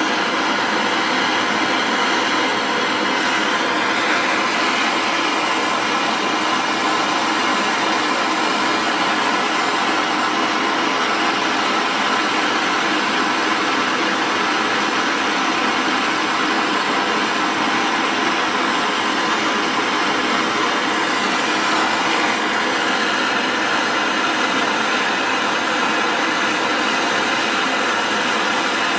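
Vortex brazing torch burning MAP gas, its flame running with a steady, even hiss while it heats a metal fitting until it glows red.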